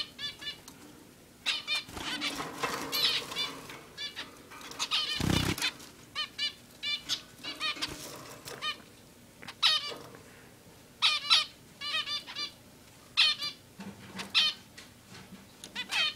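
Zebra finches calling: clusters of short, quickly repeated beeping calls. A brief rustling burst comes about five seconds in.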